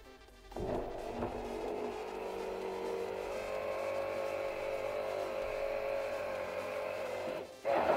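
Electric immersion hand blender switching on about half a second in and running steadily, its blade whipping a thick hazelnut, cocoa, sugar, milk and oil paste in a glass jug. It stops briefly just before the end and starts again louder.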